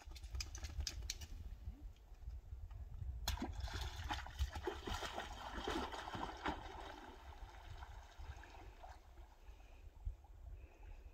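A dog splashing as it wades off the shore into a lake and starts to swim: a few seconds of faint water splashing and dripping, fading toward the end.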